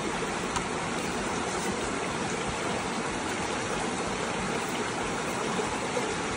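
River water flowing, a steady, even rushing.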